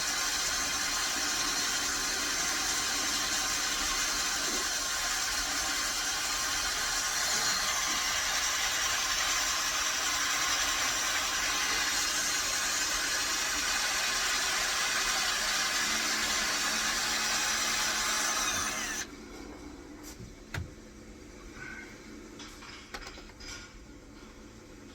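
Power drill running steadily as it bores a mounting hole for a lathe's DRO scale, cutting off suddenly about nineteen seconds in, followed by a few light clicks.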